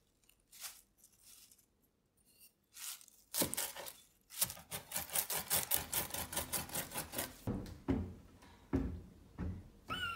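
A double-handled curved mezzaluna blade rocking through fresh parsley on a wooden cutting board: after a few soft rustles, a fast even run of crisp chopping strokes, about five a second, then a few slower, heavier knocks of the blade on the board.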